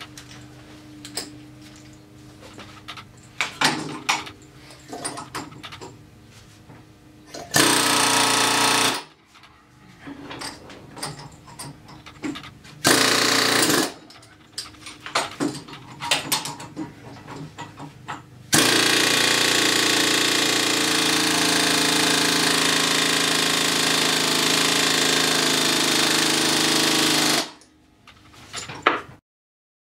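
Pneumatic air hammer rattling against the ATV's rear axle housing in three bursts, the last about nine seconds long, driving the rear drive forward into line with the transmission. Light metal clicks and knocks from handling tools between bursts.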